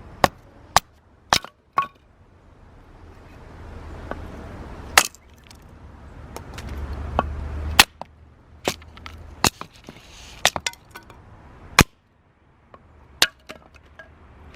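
Hinoki firewood giving a run of sharp, irregular cracks and snaps, about fifteen, some close together.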